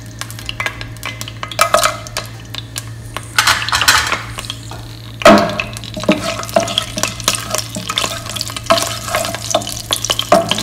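Whole spices (cinnamon, cloves and cardamom) frying in hot oil in a pan, sizzling, with a spatula stirring, scraping and clicking against the pan. The sizzle swells about three and a half seconds in and again, suddenly and loudest, about five seconds in, over a steady low hum.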